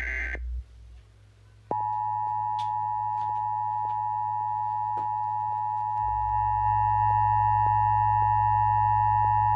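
Emergency Alert System attention signal: two steady pure tones sounded together just under 1 kHz (the EAS 853 Hz and 960 Hz pair), starting about two seconds in and holding for about eight seconds. Just before it comes the tail of a screechy SAME digital header burst, then a second of near quiet.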